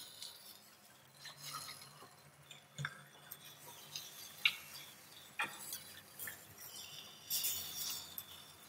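Light metal clinks and scrapes, scattered and irregular, as asparagus spears are moved from a metal baking tray onto grill grates. A short busier clatter comes near the end.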